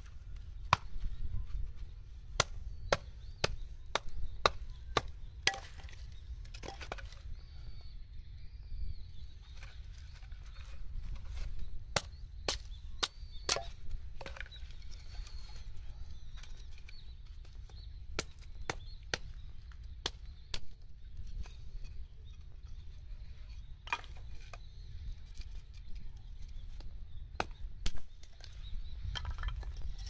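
Small hatchet chopping and splitting a stick of firewood into kindling: sharp, irregular wooden knocks, some in quick runs, with pauses between.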